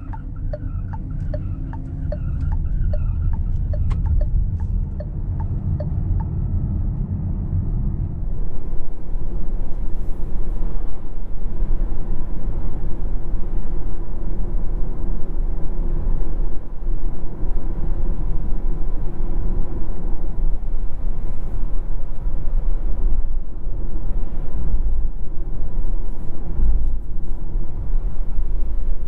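Renault Rafale E-Tech full hybrid driving on the road: a steady rumble of road, tyre and powertrain noise. Over the first several seconds there is a regular ticking at about one and a half a second. From about eight seconds in the noise steps up louder and stays there.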